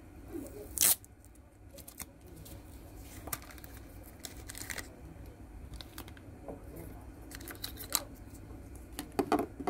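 Handling of plastic gacha toy capsules and a figure sealed in a plastic bag: a sharp snap about a second in, then scattered light clicks and plastic crinkling, with a busier cluster of clicks near the end.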